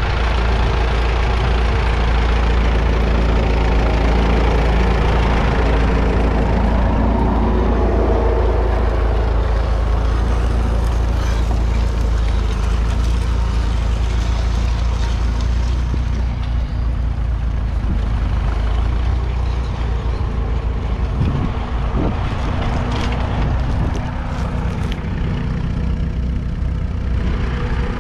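1944 Fordson Model N's 4.4-litre four-cylinder engine running steadily under load, pulling a two-furrow trailed plough. From about halfway through it sounds thinner, with a few short knocks.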